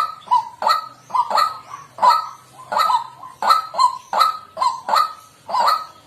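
White-breasted waterhen calling: a steady run of short repeated 'kwak' notes, about three a second, often in close pairs.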